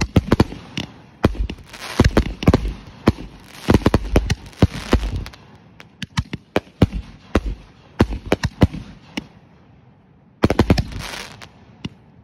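Consumer aerial fireworks going off: a rapid run of sharp bangs and shell breaks for about five seconds. The bangs then thin out to scattered reports, with a denser, noisier cluster about ten seconds in.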